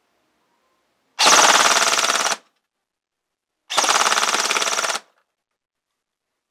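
Airsoft CTW electric rifle, driven by a custom hand-wound motor on an 11.1 V LiPo, firing two full-auto bursts of rapid shots, each a little over a second long, with a short pause between them.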